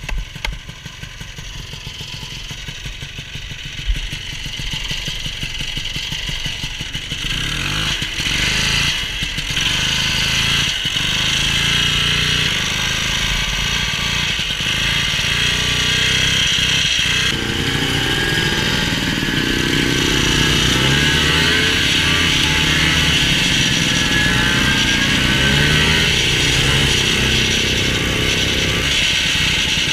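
Old snowmobile engine running while under way, heard from the rider's seat. It grows louder over the first several seconds, then holds steady with revs rising and falling, over a steady high hiss. There is a single knock about four seconds in.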